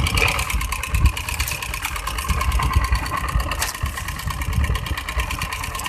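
A fishing boat's small engine running steadily close by, with a rapid, even chugging. One sharp click a little past halfway.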